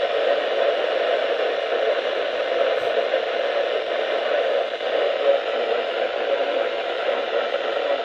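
Steady static hiss from a Midland weather radio's speaker, tuned to NOAA Weather Radio at 162.425 MHz.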